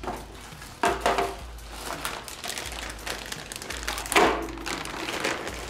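Plastic food packaging crinkling and rustling as ingredients are grabbed and handled, with two louder bursts, about a second in and about four seconds in.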